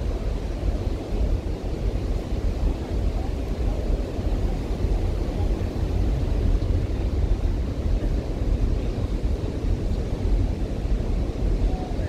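Wind buffeting the microphone in a constant low, fluttering rumble, over the steady wash of ocean surf.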